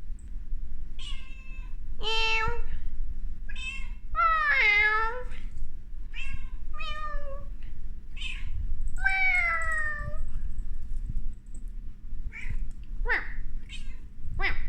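A cat meowing over and over, about ten meows of varying length, several of the longer ones sliding down in pitch.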